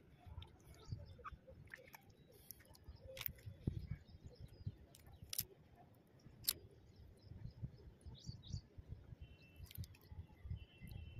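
Faint outdoor ambience: small birds chirping in the background. Soft low thumps and rumbles run throughout, and a few sharp clicks come about three, five and six seconds in.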